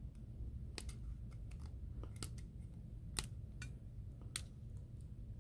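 Several small, sharp clicks a second or so apart: a pry tool working on the iPhone X's flex-cable connectors, popping them off the board as they are unplugged.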